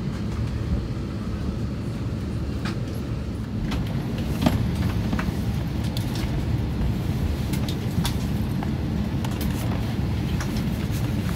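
Steady low rumble of an Airbus A321 airliner heard from inside the passenger cabin, with scattered sharp clicks and knocks throughout.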